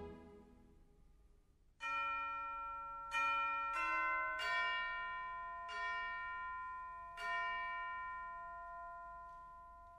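Six bell strikes at changing pitches, the first about two seconds in after a quiet moment, each left to ring and slowly die away, as part of a film's music score.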